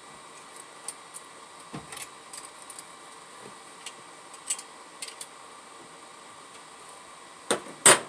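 Light metallic clinks and taps of hand tools and small parts being handled, with two louder sharp knocks near the end, over a steady background hum.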